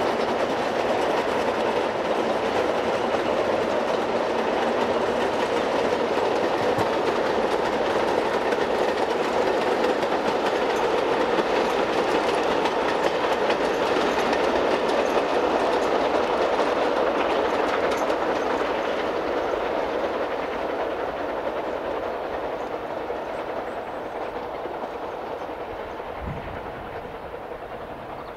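Narrow-gauge train of small four-wheeled slate wagons rolling past on the rails with a steady rattling clickety-clack of wheels and loose wagons. It fades away over the last several seconds as the train moves off.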